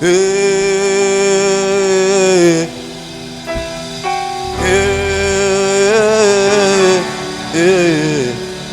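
Live gospel worship music: a voice or voices holding long sung notes with vibrato over sustained keyboard chords, in two long phrases and a shorter one near the end.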